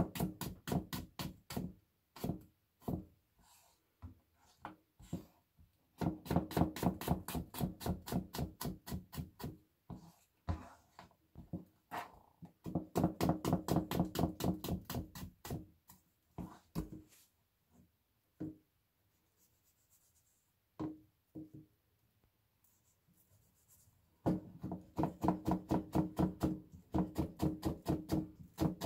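Kitchen knife mincing garlic on a cutting board: runs of quick, even chopping strokes at about five or six a second, broken by pauses with a few single taps.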